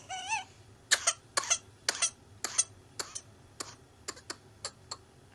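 A child's whooping cough (pertussis) fit: a brief high-pitched wavering whoop as air is drawn in at the start, then a rapid run of short coughs, one after another, growing fainter toward the end.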